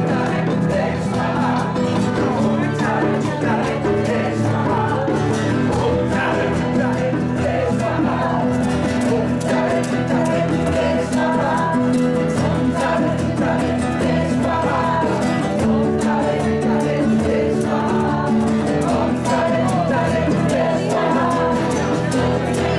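A group of voices singing together to strummed acoustic guitars and a hand drum, with long held notes.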